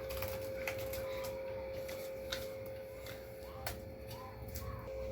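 Scattered light clicks and taps from kitchen utensils being handled, over a steady low hum.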